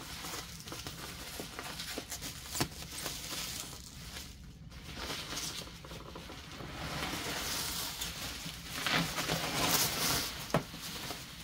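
Plastic bubble wrap rustling and crinkling as hands pull and handle it, with an occasional sharp click.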